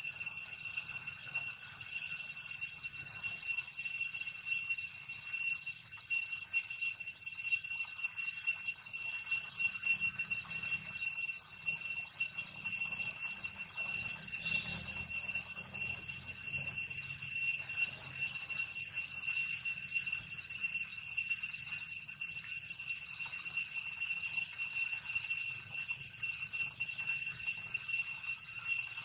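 Steady high-pitched buzzing of an insect chorus, several shrill tones held without a break.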